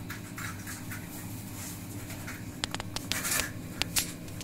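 A pen scratching on a paper form as it is signed, with a few sharp light taps in the second half, over a low steady room hum.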